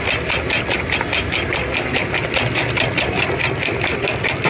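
Rapid, even metallic clicking, about five strokes a second, of a metal cooking utensil striking metal at an omelette griddle, over a steady hum of street traffic.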